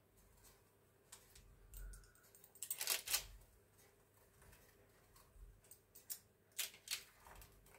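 Small knife scoring crispbread dough on a parchment-lined metal baking tray: a few short scraping strokes, the loudest about three seconds in and a couple more near the end.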